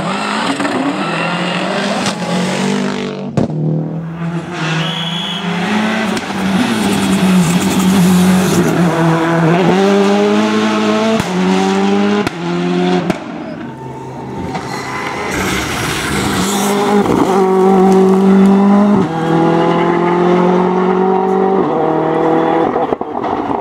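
Rally cars driven at full throttle on a stage, engines revving hard and changing up through the gears, the pitch climbing and then dropping back at each shift. The sound breaks off abruptly a few times as one car gives way to the next.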